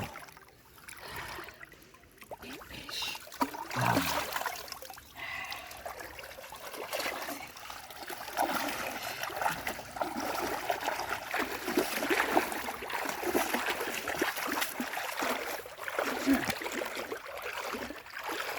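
Water splashing and trickling, sparse and uneven at first, then steadier and louder from about a third of the way in.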